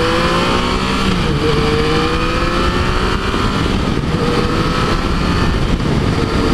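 Yamaha FJ-09's three-cylinder engine pulling under way, its pitch climbing, dipping briefly about a second in, then rising gently and holding steady, over heavy wind rush on a helmet-mounted microphone.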